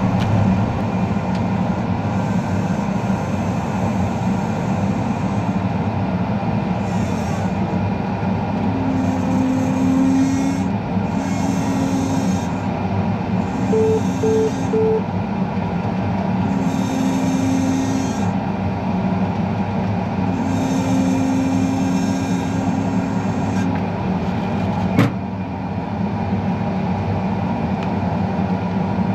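Large diesel farm-machine engine running steadily, with a tone that comes and goes every few seconds, three short beeps about halfway through and a single sharp knock near the end.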